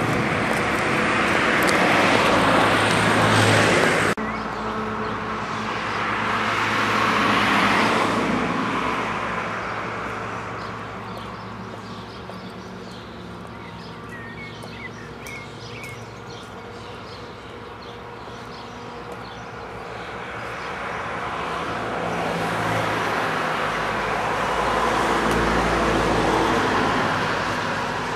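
Road traffic: cars passing one after another, a rush of tyres and engines that swells and fades, loudest about two and eight seconds in and again near the end, with an abrupt drop about four seconds in.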